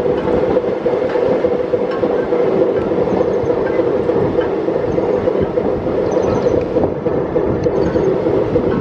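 Indian Railways express passenger coach running at speed, heard from on board: a steady, loud rumble of wheels on the track.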